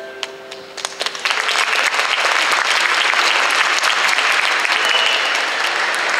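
Audience applause: a few scattered claps, then full, steady clapping builds about a second in, just after the performers' bow.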